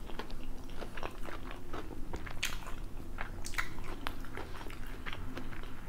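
Close-miked chewing of a bite of McDonald's buttermilk crispy chicken tender: irregular wet mouth clicks and crunchy crackles, with a couple of louder crunches partway through.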